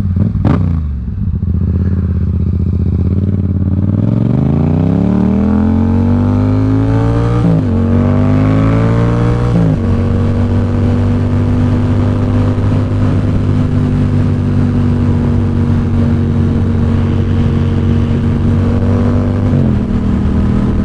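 Yamaha XSR700's parallel-twin engine through a Two Brothers SR1 aftermarket exhaust, heard from the rider's seat. It runs low and steady for about four seconds, then accelerates, the pitch rising and dropping at two upshifts about 7.5 and 10 seconds in, and settles into a steady cruise with a slight dip near the end.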